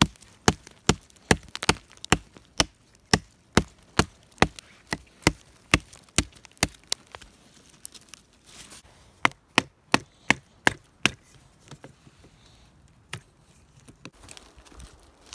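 A handmade knife chopping small branches off a wooden pole, used in place of an axe. Steady blade strikes into wood, a little over two a second for about seven seconds. After a short pause comes a quicker run of about six strikes, then a few lighter taps near the end.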